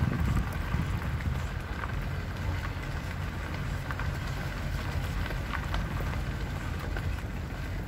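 A vehicle rolling slowly over gravel: a steady low rumble with scattered small crunches and ticks of stones under the tyres.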